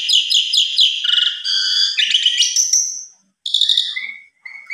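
Javan pied starling singing a long, varied song: a fast run of repeated chattering notes, then trills and whistled phrases, a short break about three seconds in, and a held whistle near the end. It is the excited, full-repertoire song that keepers call "bongkar isian".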